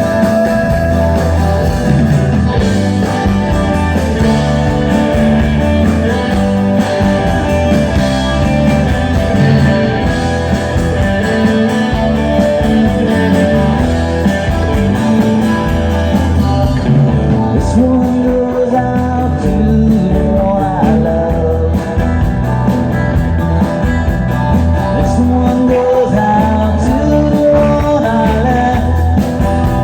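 Rock band playing a song, with electric guitar, bass and a singing voice over a steady beat.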